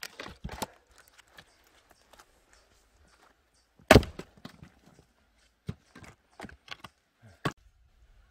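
Axe striking a knotty log of firewood: one hard blow a little under four seconds in, with lighter knocks of wood before and after it.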